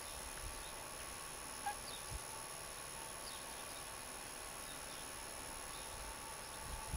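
Quiet outdoor ambience: a steady hiss with a few faint, short, high chirps scattered through it and a soft thump about two seconds in.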